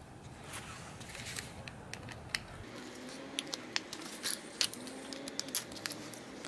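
Light metallic clicks and taps, unevenly spaced: a 10 mm socket being fitted to the fuel-bowl bolt of a Honda lawnmower carburetor and turning it out. Under them is the small clatter of the metal carburetor body being handled.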